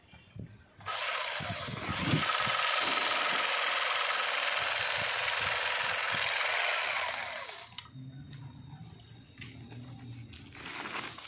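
Handheld electric sack-sewing machine running as it stitches the top of a woven rice sack shut, a steady buzzing with a high whine. It starts about a second in and stops after about seven seconds.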